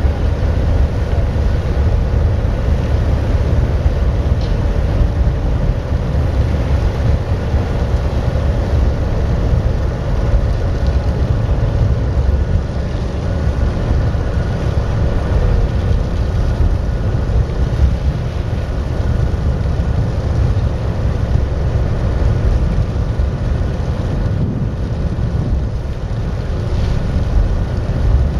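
Steady engine drone of a passenger ferry under way as it pulls away from the quay, with wind buffeting the microphone on the open deck.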